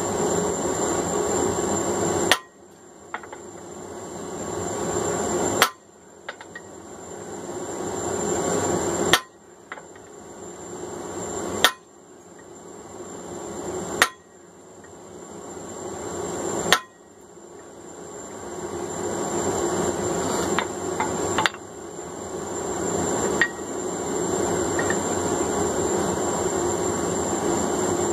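Heavy single hammer blows on hot steel at the anvil, about eight of them every two to three seconds, fullering grooves into a forged hammer head. Under them runs a steady roar that drops out after each blow and swells back up.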